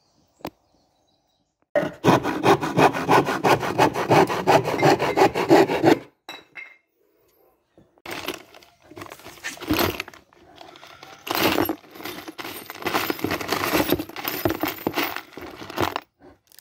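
A saw cutting through a piece of wood in quick, even strokes for about four seconds, then loose screws and bolts rattling as a hand rummages through a plastic tub of hardware.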